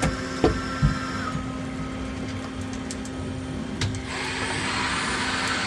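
PolyGim Diamond 42CSL CNC Swiss-type lathe running a programmed cycle: a steady motor whine, with a higher tone that dips and stops about a second in, and a few sharp clicks.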